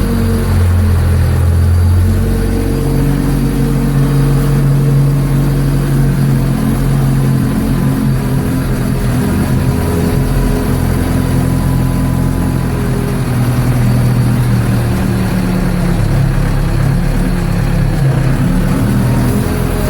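Ford 755B backhoe's diesel engine running steadily under way, its engine note shifting up and down a couple of times as the throttle changes.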